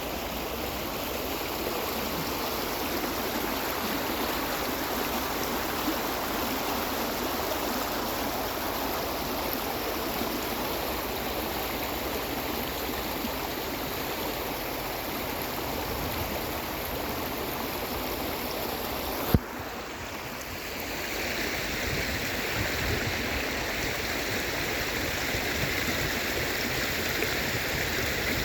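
Steady rush of flowing water, like a stream or river current. About two-thirds of the way through, a single sharp click, after which the rush sounds brighter and hissier.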